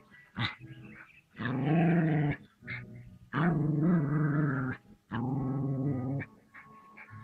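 Dog growling: three long drawn-out growls of about a second each, with a few short sharp sounds between them.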